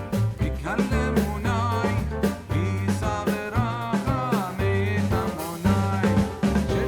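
Background music with a steady beat: drums, bass and a wavering melodic line.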